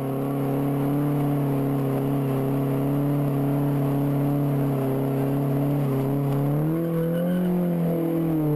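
Car engine held at high revs during a burnout while the tyres spin and smoke. The engine note is steady, then climbs in pitch about seven seconds in.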